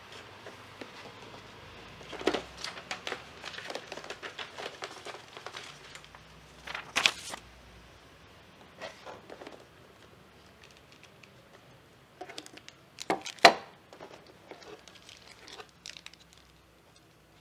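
Packaging in a camera box being handled: crinkling and rustling of wrapping and a plastic tray in clusters of short crackles, with a sharp crackle about 7 s in and a louder one about 13 s in.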